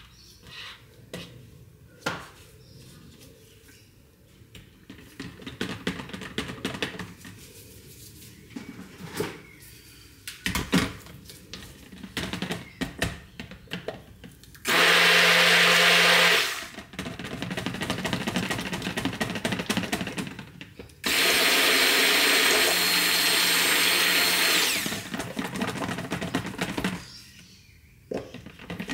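Stick blender run in two short bursts, about two seconds and then about four seconds, blending lye into oils in a plastic jug to bring the raw soap batter to emulsion. Before and between the bursts, scraping, knocking and clicking of the spatula and the blender head against the plastic jug.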